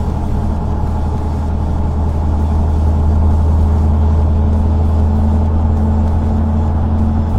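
Motor vehicle driving, a steady low engine and road drone that grows a little louder over the first couple of seconds and then holds.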